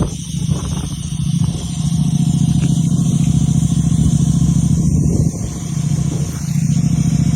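A motor vehicle's engine running steadily with a loud low hum, easing off briefly twice: just after the start and about five seconds in.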